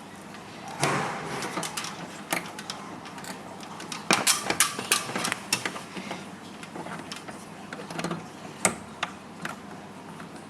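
Scattered small clicks, taps and rattles of hands handling wires and plugging them into the terminal connectors of an EAS RF antenna's circuit board, busiest about four to five and a half seconds in.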